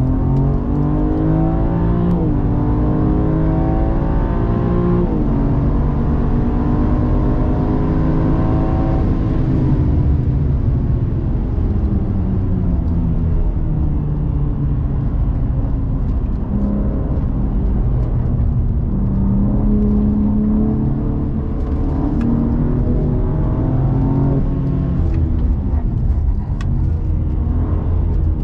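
BMW M3 Competition (G80)'s twin-turbo inline-six heard from inside the cabin, pulling hard with its pitch rising and two quick upshifts in the first five seconds. About nine seconds in it lifts off, and then runs at lower, varying revs with part-throttle pulls through the corners, over a steady low rumble.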